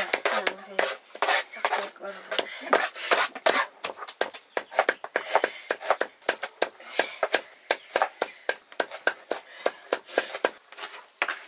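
Cleaver chopping raw pork on a wooden chopping block, mincing it: a steady run of sharp knocks, several a second.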